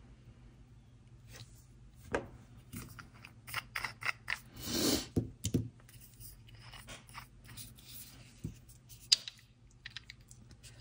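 Small plastic clicks, taps and scrapes from handling nail-stamping tools: a jelly stamper, a polish bottle and swatch discs. There is a longer scrape about five seconds in and one sharp click about nine seconds in.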